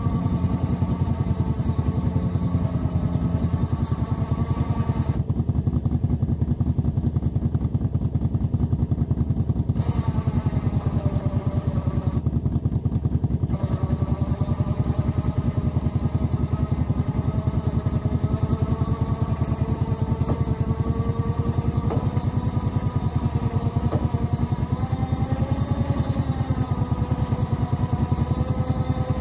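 Four-wheeler (ATV) engine running continuously under load, its pitch drifting slowly up and down as it pulls the deck along.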